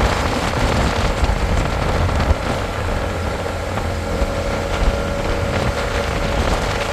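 Road vehicle driving: a steady low engine-and-road rumble with hiss.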